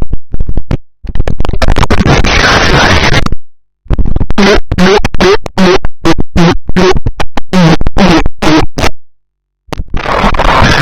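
Very loud, distorted meme audio with record-scratch-like sounds, broken up into rapid stuttering cuts in the second half.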